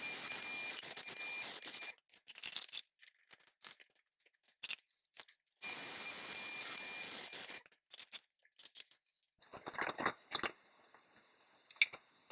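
Welding arc on steel tube, two short beads of about two seconds each that start and stop abruptly, with small clicks between them. Near the end come a few metal knocks over a faint hiss.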